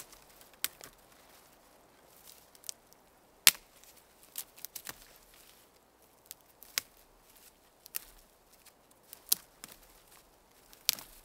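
Dry dead twigs snapping as they are broken by hand off a standing conifer: about a dozen sharp cracks at irregular intervals, a quick cluster of them just under five seconds in, the loudest about three and a half seconds in.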